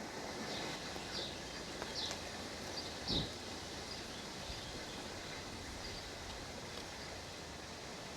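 Steady outdoor hiss with a few short, high bird chirps in the first three seconds and a single low thump about three seconds in.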